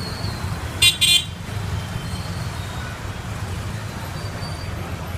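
Two short, high-pitched vehicle horn toots in quick succession about a second in, over the steady low rumble of street traffic.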